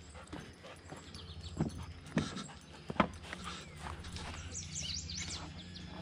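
Footsteps on a wooden dock: a few sharp knocks on the boards, the loudest about three seconds in, as the dog moves about on it. A low steady hum comes in about halfway, and a few short high chirps sound near the end.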